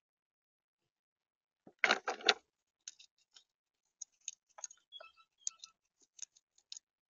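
Gray squirrel gnawing and cracking an acorn shell close to the microphone: irregular sharp clicks and crunches. About two seconds in there is a louder crunching scuffle of about half a second as the squirrel shifts among the nuts in the plastic tub.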